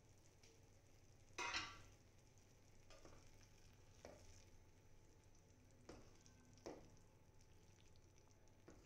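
Metal spoon stirring stuffed brinjals in a pan of gravy simmering on low flame: a faint sizzle with about six soft scrapes and clinks against the pan, the loudest about a second and a half in.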